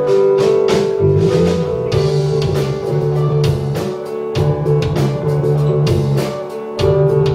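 A live band plays an instrumental passage: electric guitar over a bass line and a drum kit keeping a steady beat, with no singing.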